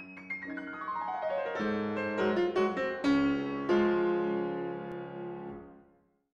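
Short piano jingle: a quick run of notes that builds into held chords, then dies away shortly before the end.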